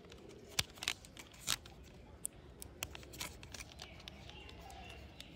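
Faint scattered clicks and rubbing of plastic toy parts being handled, as a plastic wheel is fitted onto a toy bicycle's frame and its axle pushed through the hub.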